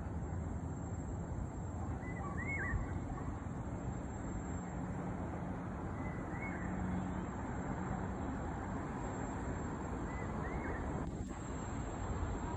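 Steady low hum of distant city traffic, with a bird calling three times in short chirps.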